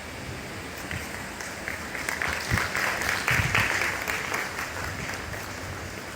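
Audience applauding, the clapping swelling about two seconds in and dying away before the end.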